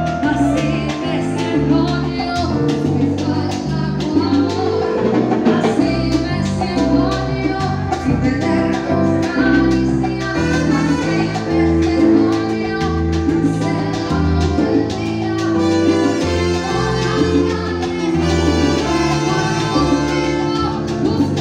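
Live salsa band playing, with a woman singing lead over a steady percussion beat, bass and brass.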